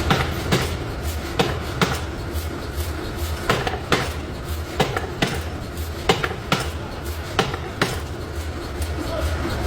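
Hammer blows on metal, struck irregularly about one or two times a second, over a steady low rumble.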